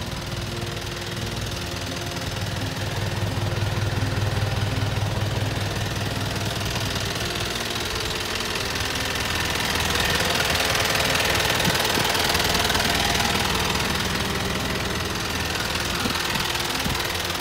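Toyota Dyna truck's engine idling steadily, its sound swelling with more hiss for a few seconds midway as the microphone passes along underneath the truck.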